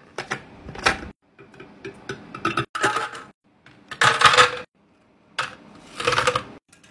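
Small objects and packaging being handled: a few sharp clicks, then irregular rustling bursts, the loudest about four seconds in.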